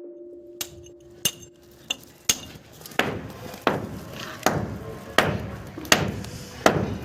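Repeated hammer blows, about one every three-quarters of a second, each a sharp strike with a short ringing tail, growing louder after the first couple.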